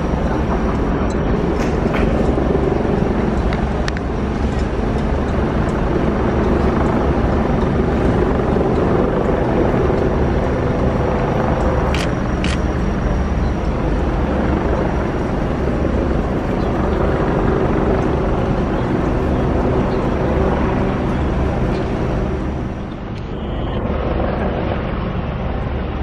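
A large engine running steadily, a deep even hum, with a couple of sharp clanks about twelve seconds in.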